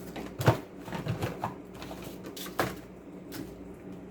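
Medicine bottles, tubes and packets knocking and clicking as they are put back into a box: a few separate sharp knocks, the loudest about half a second in and another near the middle.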